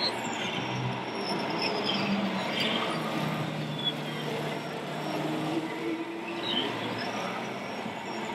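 Radio-controlled model tractors driving through dirt and wood chips: a steady din of small motors humming and whining, with faint rising and falling high whines now and then.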